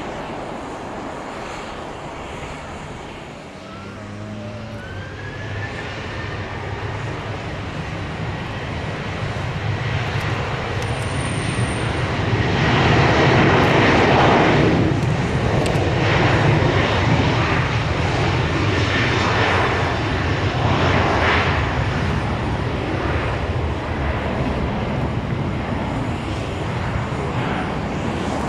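Jet airliner engines on a wet runway: an easyJet Airbus A320 rolling out after landing, then a Ryanair Boeing 737-800 taxiing and powering up. A thin rising whine comes in a few seconds in, and the engine noise builds to its loudest around halfway through.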